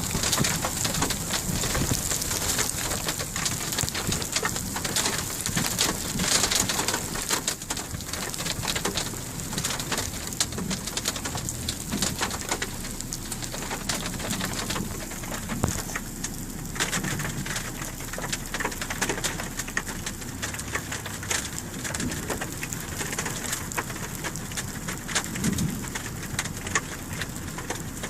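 Heavy rain falling during a severe thunderstorm, with many drops clicking on a hard surface.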